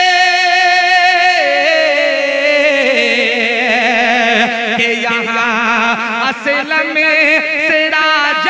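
A man singing a sehra, a wedding song, into a handheld microphone. He holds one long note, steps down in pitch twice, then carries the line on in a wavering, ornamented run without words.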